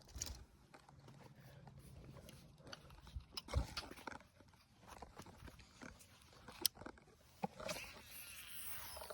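Faint, scattered clicks and knocks of a fishing rod and reel being handled while casting, with a louder low thump about three and a half seconds in and a soft hiss near the end.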